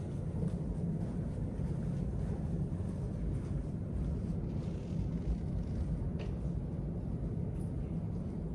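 Steady low rumble and hum of elevator machinery, with a faint click about six seconds in.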